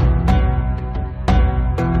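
Background music: sustained pitched notes over a strong deep bass, with fresh notes struck every half second or so.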